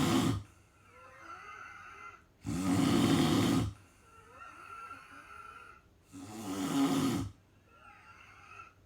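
A sleeping person snoring in a steady rhythm: loud rasping snores about a second long, roughly every three seconds, with softer breathing between them.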